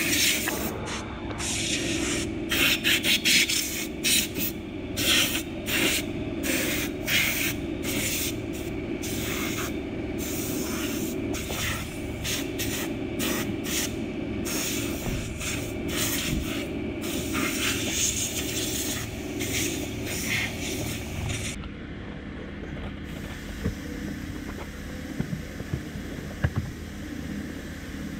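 Cloth and detailing brush scrubbing and wiping engine-bay plastics, in short irregular strokes with bursts of hiss. About three quarters of the way through the sound changes abruptly to a quieter steady hum with a few light plastic clicks.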